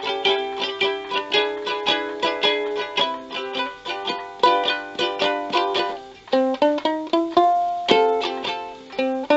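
Strumbox kit ukulele, a concert-scale ukulele with a cardboard box body, played unplugged: quick rhythmic chord strumming, which about six seconds in gives way to a slower run of separate plucked notes.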